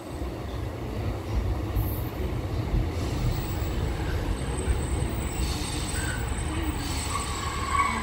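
Class 153 diesel multiple unit pulling into the platform: a steady low rumble from its Cummins diesel engine and wheels. A thin, high-pitched squeal joins it about three seconds in as it slows.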